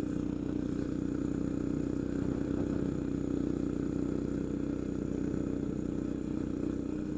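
Coleman CT200U minibike's single-cylinder four-stroke engine running at a steady speed while riding.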